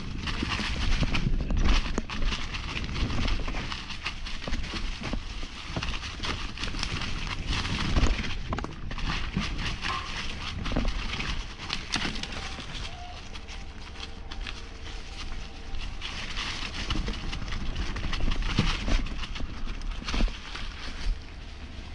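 Mountain bike descending a rocky dirt trail: tyres crunching over stones, the bike rattling with frequent sharp knocks, and a low rumble of wind on the microphone.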